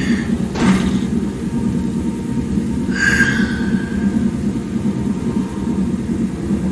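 A steady low rumble from the anime's soundtrack, with a short swish under a second in and a brief higher-pitched sweep about three seconds in.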